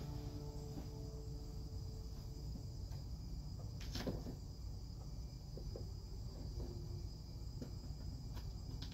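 Steady low hum under a thin, steady high-pitched whine, with one sharp click about four seconds in.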